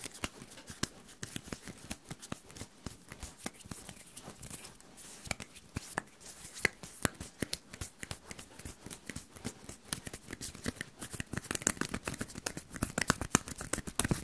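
ASMR hand sounds: palms and fingers rubbing and brushing together close to the microphone, making a dense run of crisp skin-on-skin rustles and small clicks. They grow denser and louder over the last few seconds.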